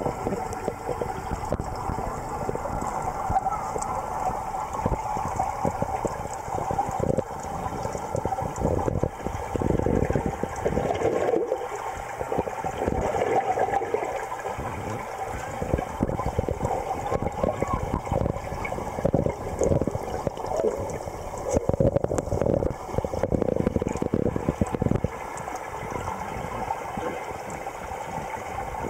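Water rushing and gurgling in a large aquarium, a steady churning noise broken by frequent small knocks and bumps.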